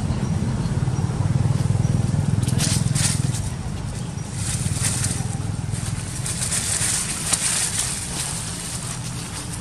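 Dry leaf litter rustling and crackling under two macaques wrestling on it, in scattered patches a few seconds in and again through the middle, over a steady low rumble.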